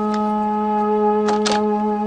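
Background score music: a chord of long, steady held notes, with a few faint clicks.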